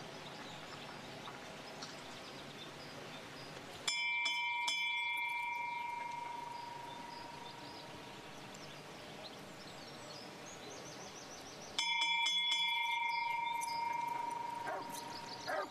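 Small hanging gate bell rung twice, about eight seconds apart: each time a quick cluster of clapper strikes, then a clear tone that rings on and fades over a few seconds.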